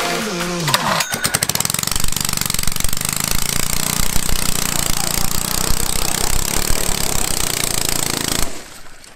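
Honda GX single-cylinder four-stroke engine, primed with starter fluid, catching on the recoil starter about a second in and running loudly before cutting off suddenly near the end. Electronic music finishes with a falling sweep just before the engine starts.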